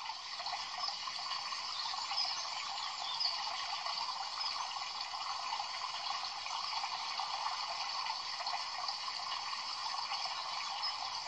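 Steady running water: an even, constant splashing hiss.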